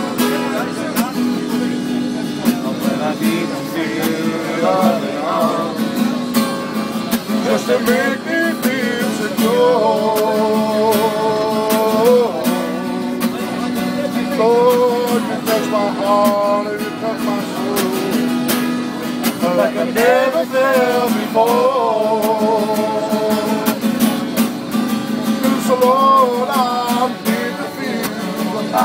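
Music: singing with guitar accompaniment, the voice holding long wavering notes over a steady low hum.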